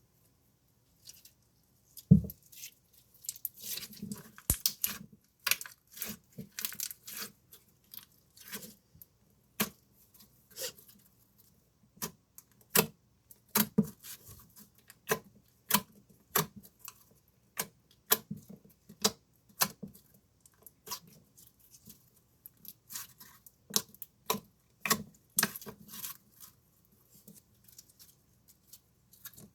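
Slime being squeezed and stretched by hand, giving off a long run of irregular sticky pops and clicks. A sharper knock comes about two seconds in.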